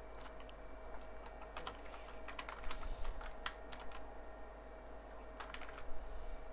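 Computer keyboard being typed on in a few short, irregular runs of keystrokes, entering a password, over a faint steady hum.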